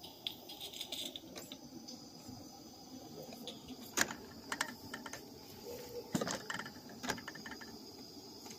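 Irregular light metallic clicks and clanks from a live-steam garden-railway locomotive moving slowly on the track, over a faint steady high hiss.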